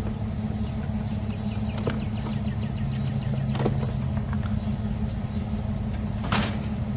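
Vehicle engine running steadily with road rumble while driving, with a few brief knocks or rattles, the strongest near the end.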